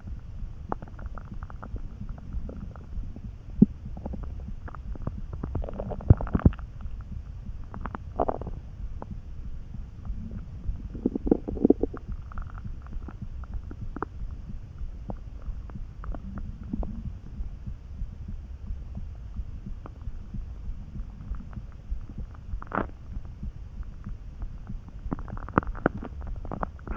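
A hungry human stomach churning: a steady low rumble with scattered clicks and short gurgles, and a longer bubbling gurgle about eleven seconds in. It is the calm churning of a stomach that has not had much to eat.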